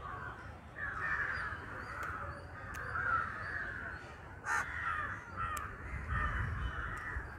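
Crows cawing over and over, several calls overlapping with hardly a break. A sharp click sounds a little past the middle.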